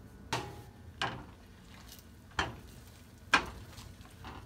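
Spatula scraping and pushing beaten eggs around a nonstick frying pan as they scramble: four sharp strokes, the last the loudest.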